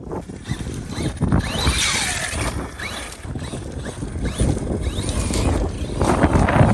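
ARRMA Fireteam 6S RC car driving hard on its brushless motor, with the motor's whine rising and falling as it speeds up and slows, over the rumble of its tyres on the ground.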